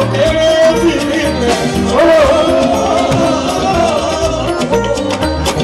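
Live fuji music: a male lead singer holds long notes that bend in pitch, sung into a microphone over drums and band.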